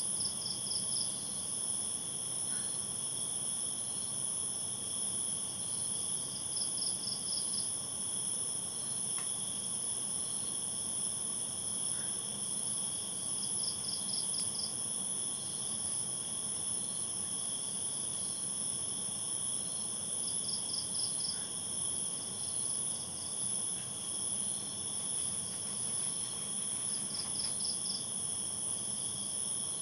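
Night insect chorus: a steady, shrill, high-pitched trill, with another insect's burst of about five quick chirps repeating roughly every seven seconds.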